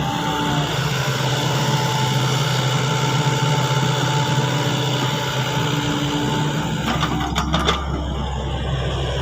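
Excavator running steadily: an even engine hum with a steady high whine over it, and a few sharp knocks about seven seconds in.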